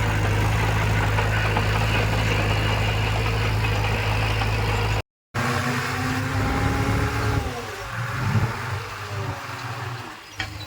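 Heavy construction machine's diesel engine running steadily, with a strong, even low hum. It cuts out for a moment about halfway through, then comes back quieter, with a pitch that shifts up and down.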